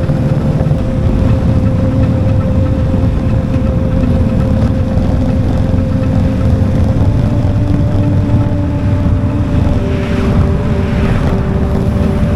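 Motorcycle engine running at a steady cruise while riding, with wind rushing over the microphone. The engine's pitch drifts slowly with road speed.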